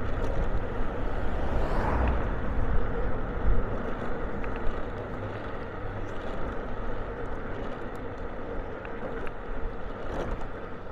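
Steady engine and tyre noise of a vehicle being driven along a town street, swelling briefly about two seconds in.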